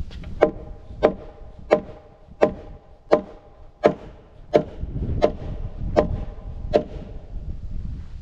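Steady hammering with a mallet on timber: about ten even blows, a little more than one a second, each ringing briefly.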